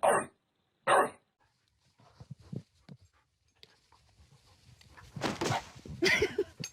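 A dog barks twice at the start, about a second apart, as part of a steady run of barks. Quieter scattered sounds follow, then a louder rough, noisy stretch near the end.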